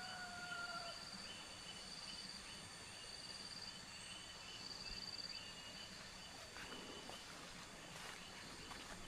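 Rice-field morning ambience: small animals giving repeated short high chirps and brief trills over a soft steady background. A wavering call fades out about a second in, and a few soft footsteps come in the second half.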